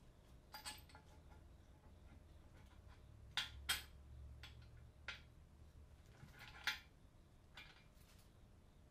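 Handling noise: a few sharp clicks and clinks of small hard objects being moved about, the loudest two close together about three and a half seconds in and another near seven seconds, over a faint low hum.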